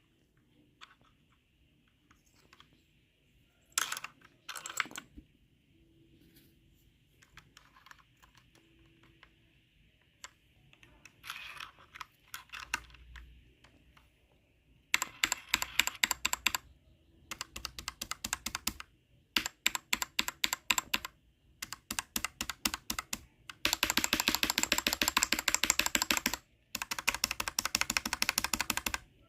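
Typing on a mechanical keyboard whose standard mechanical switches carry low-profile keycaps: a few scattered keystrokes at first, then bursts of fast typing through the second half, densest near the end.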